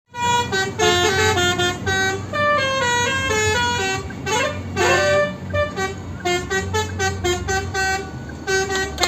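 Telolet bus horn, a multi-tone musical horn, playing a quick stepping melody with a few sliding notes about four to five seconds in, over a steady low hum.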